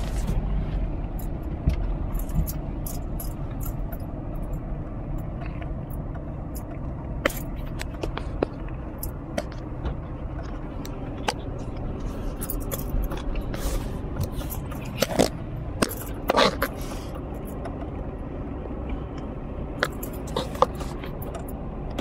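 Steady low road and engine rumble inside a moving car's cabin, with scattered sharp clicks and rattles. A cluster of louder ones comes about fifteen to seventeen seconds in.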